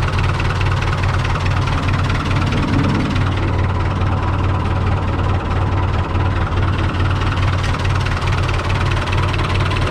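Long 560 DT tractor's diesel engine idling steadily.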